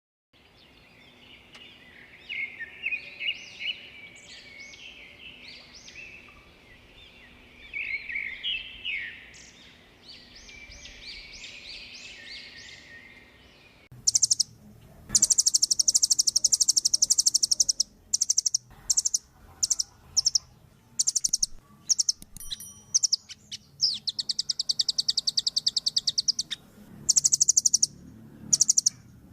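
Velvet-fronted nuthatch calling: quieter, sharp chirps for the first half, then loud, very rapid high-pitched trills repeated in bursts with short pauses.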